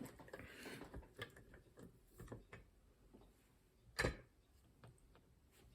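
Faint handling noise of small hard objects: scattered light clicks and taps, with one sharper knock about four seconds in.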